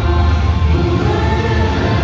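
Music with singing: a song from a children's stage musical, voices held on sustained notes over a heavy bass line.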